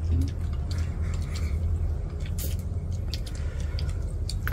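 Chopsticks and spoons clicking lightly against porcelain bowls while people eat, as scattered short clicks over a steady low rumble.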